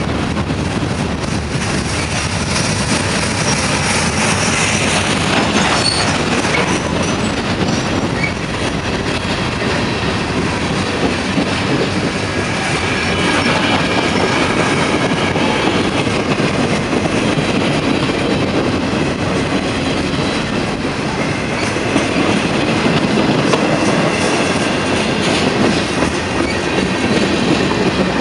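Slow freight cars rolling past: steel wheels rumbling and clacking on the rails, with a faint high wheel squeal at times.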